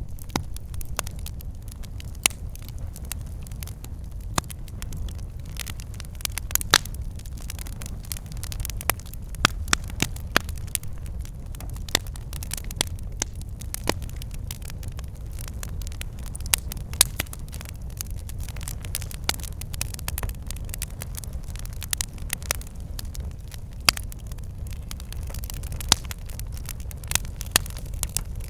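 Campfire burning, a steady low rumble of flames with frequent irregular sharp crackles and pops from the wood.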